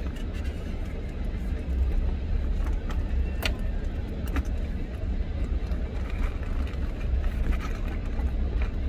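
Car engine idling, heard as a steady low rumble inside the cabin, with a few small metallic clicks and jingles from a handbag's chain strap and clasp being handled.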